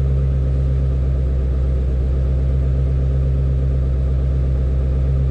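Shelby GT350's 5.2-litre Voodoo flat-plane-crank V8 idling steadily, a constant low rumble.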